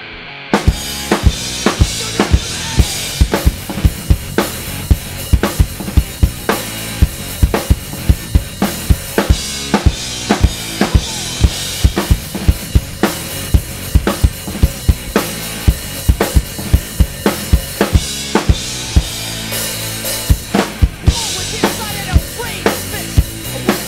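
Acoustic drum kit played hard in a fast rock beat, bass drum and snare with cymbals, over a rock backing track. The drums come in about half a second in, after a quieter guitar-only passage.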